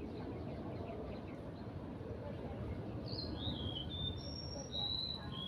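A bird singing: a run of clear, high whistled notes at differing pitches, some sliding downward, starting a little past halfway through, over steady low background noise.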